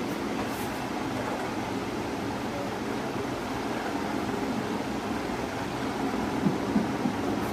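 Steady mechanical room noise, a low hum with hiss, with a few faint clicks near the end.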